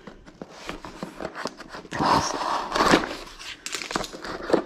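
Fixed-blade knife slitting open a flat cardboard box, with the blade scraping through cardboard and tape and the cardboard crackling, loudest about two to three seconds in, among small clicks and knocks of the box being handled.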